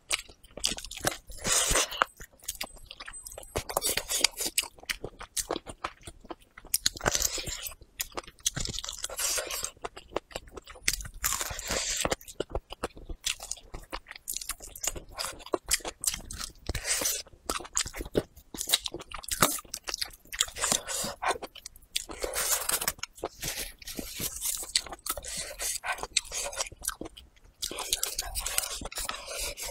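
Close-miked chewing and biting of braised pig tail: wet mouth sounds with irregular clusters of sharp clicks, coming and going in short runs.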